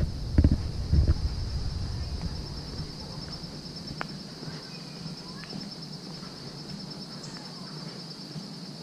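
Steady, high-pitched chorus of insects, a continuous fast-pulsing trill. Wind buffets the microphone with a low rumble during the first two seconds or so, then dies away.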